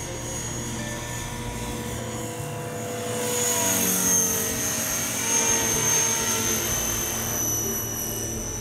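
Blade 450 3D electric RC helicopter in flight: the high whine of its motor and rotor drive with the rush of the spinning blades. It grows louder about three seconds in as the helicopter passes close, then fades as it flies off.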